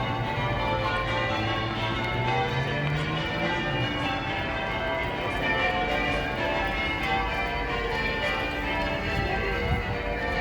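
A ring of church bells rung in full swing, in change ringing: many bells sounding one after another in a continuous, overlapping peal. A low steady hum underneath fades out about three seconds in.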